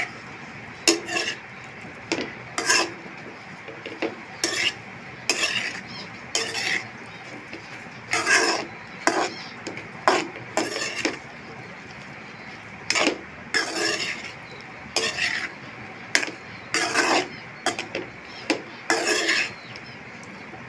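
Metal slotted spoon stirring and scraping diced potatoes and spices around an aluminium karahi: irregular scrape-and-clink strokes, roughly one a second, over a steady low hiss.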